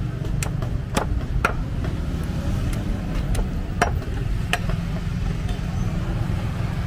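Outdoor market ambience: a steady low rumble with about nine sharp clicks and knocks scattered through the first five seconds.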